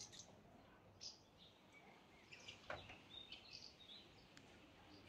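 Near silence: faint outdoor background with a few short, soft bird chirps scattered through it.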